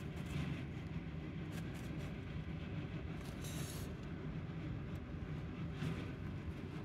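Steady low background rumble, with a few brief soft rustles of wood-shaving bedding as a dwarf hamster moves through it.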